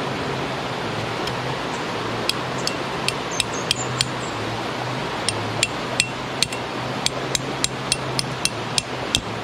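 A peg hammer driving a metal tent peg into the ground: a run of sharp metallic taps, about three a second, each with a short ringing clink, with a brief pause midway. A steady rush of stream water runs underneath.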